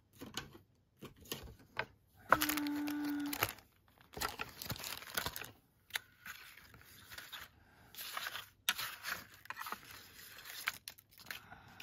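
Rummaging through a box of craft punches and papers: irregular clattering, knocking and rustling as items are shifted about. About two seconds in, a single loud, steady tone lasts about a second.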